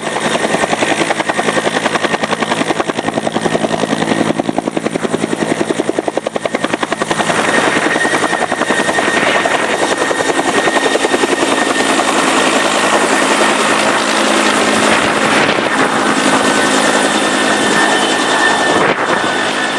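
Helicopter flying close by, its rotor beating in a fast, steady chop with a whine from the engine.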